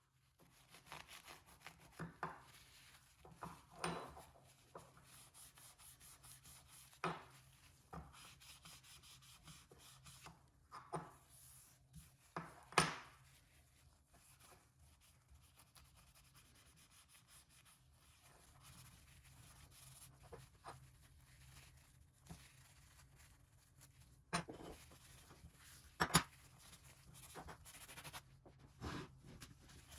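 Quiet rubbing and scraping with scattered sharp clicks and knocks: small clipper parts being handled and cleaned on a workbench.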